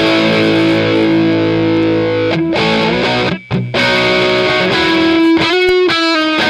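Electric guitar with overdrive, played through Rose Electric Audio's Marshall JTM45-style circuit. A chord rings out for about two seconds, then comes a couple of brief breaks and more chords, with a quick run of notes near the end.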